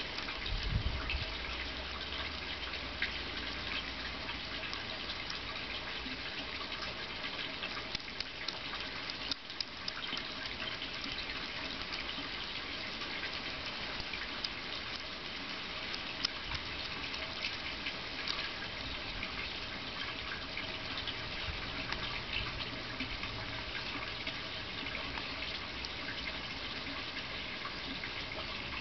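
Young European hedgehog eating from a saucer: steady wet smacking and chewing, a dense run of small clicks and crackles. A brief low rumble about a second in.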